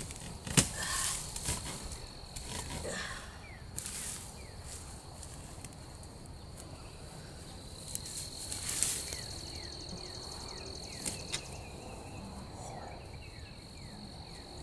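Dead grass and leaf litter rustling with scattered clicks and knocks as a wire hog panel is worked loose from the ground by hand, the sharpest click about half a second in. An insect calls steadily in the background.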